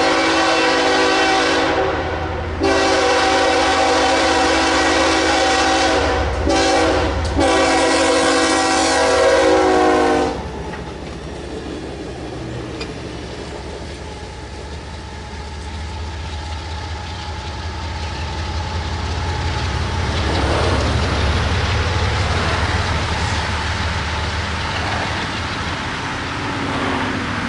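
Locomotive air horn sounding a chord of several notes in four blasts, long, long, short, long: the grade-crossing signal. Then the train rumbles past with a low engine drone and the rolling of its cars.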